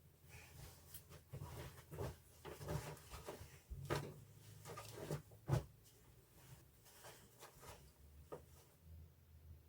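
Faint rustling and soft knocks of clothes being rummaged through, with one louder knock about five and a half seconds in.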